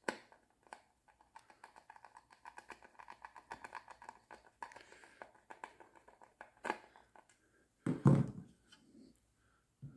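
Phillips screw being turned by hand into the wooden parts of a cuckoo clock: a run of small quick clicks and creaks, then a couple of louder wooden knocks as the pieces are handled.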